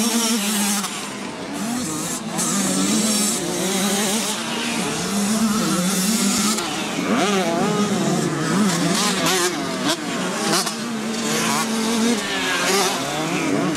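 Several 80cc two-stroke motocross bike engines revving hard together, their pitch climbing and dropping again and again as the riders open and close the throttle and shift.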